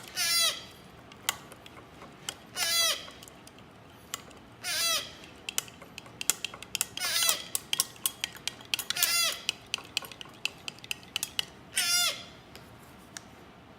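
Baby eclectus parrot chick giving repeated begging calls for food, about six raspy, bleat-like cries each half a second long, roughly two seconds apart. In the middle, light quick clinks of a utensil against the formula dish as the hand-feeding formula is stirred.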